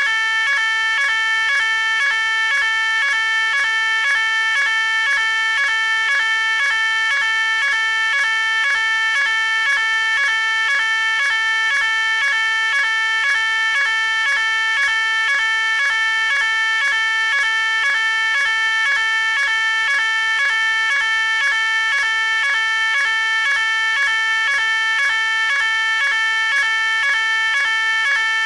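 Electronic fire alarm sounding: a shrill, several-tone pitched signal pulsing on and off at an even rapid rate, without a break.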